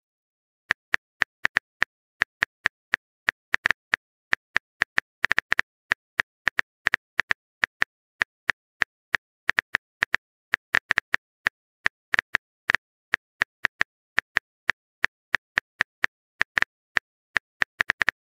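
Phone keyboard typing sound effect: a long run of short, sharp clicks at an uneven pace of about three a second.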